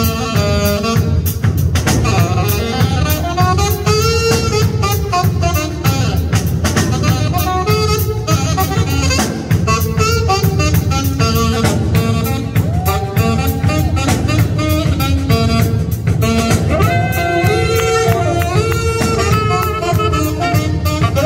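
Live jazz: saxophones playing a flowing melody over a drum kit keeping time.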